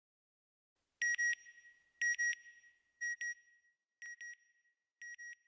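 Electronic beeping: short high double beeps, one pair each second, starting about a second in and growing fainter.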